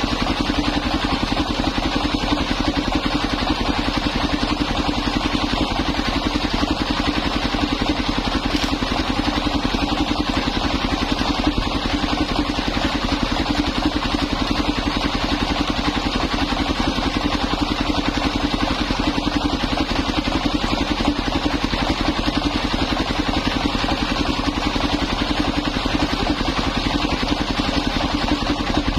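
Engine of a mobile circular sawmill running steadily and belt-driving the saw blade as it cuts old coconut wood into planks.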